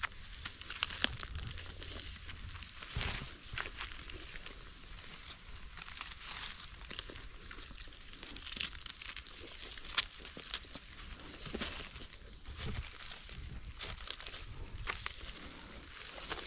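Dry leaf litter and grass rustling and crackling under gloved hands, with many small irregular clicks, snaps and scrapes, as wild mushrooms are pulled up and their stem bases trimmed with a knife.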